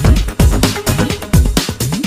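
Background electronic dance music with a steady kick-drum beat and synth tones.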